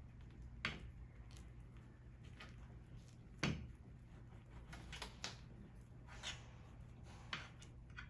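Scattered light knocks and clicks at irregular intervals, about nine in all, the loudest about three and a half seconds in, as household objects are handled and set down, over a low steady room hum.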